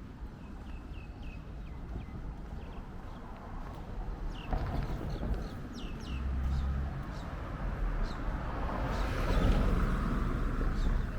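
Small birds chirping: short, quick falling calls repeated irregularly over a steady low rumble. A broader rush of noise swells near the end.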